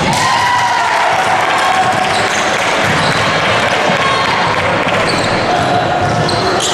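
Basketball bouncing on a gym floor during a game, over steady hall noise with a few short high squeaks.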